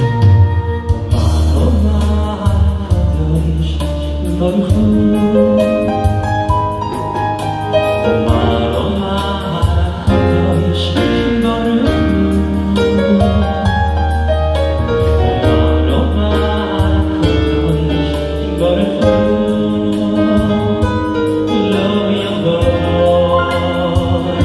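A male singer singing into a microphone over live Korg keyboard accompaniment, with sustained chords and a strong bass line.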